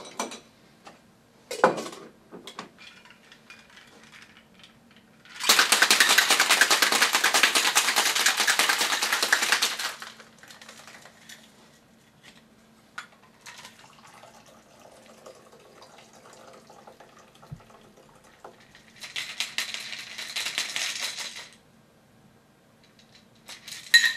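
Ice rattling hard and fast in a metal cocktail shaker being shaken for about four and a half seconds, with clinks of the shaker's metal parts before and after. Near the end comes a shorter, quieter stretch of noise as the chilled cocktail is poured out of the shaker.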